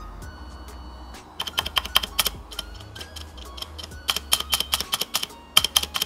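Shift keycap on a clone Cherry-style stabilizer pressed repeatedly by hand from about a second and a half in: a quick series of sharp plastic clacks. The clacks are very rattly, the sign of cheap, non-genuine, unlubricated stabilizers. Soft background music plays underneath.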